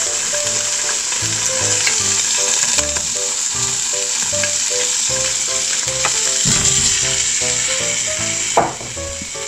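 Bacon, onion and potato sizzling in hot olive oil in a frying pan as they go in, a steady hiss, with a short knock near the end. Light background music with plucked notes plays over it.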